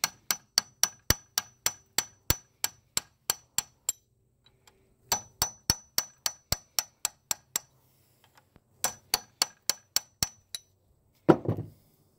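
Hammer striking a metal drift punch against the gland nut of a Woods BK-7500 backhoe boom cylinder held in a vise, driving the stuck nut round to back it off. Quick ringing metallic taps, about three a second, in three runs with short pauses between, then one louder, duller knock near the end.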